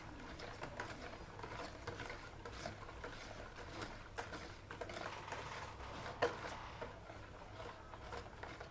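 Sugar, butter and eggs being mixed by hand in a bowl: a utensil scraping and clicking against the bowl in an irregular stream, with one sharper knock about six seconds in.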